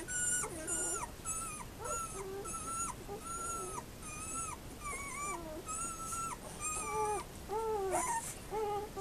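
Eight-day-old puppies squeaking and whimpering in a steady run of short high calls, about two a second, many with a falling tail.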